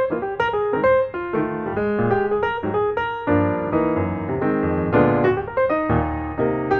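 Background piano music: a melody of quick single notes, joined by fuller chords with bass about three seconds in.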